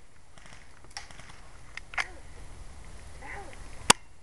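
Airsoft guns firing single sharp shots, a few seconds apart, the loudest near the end. A bird calls faintly in between.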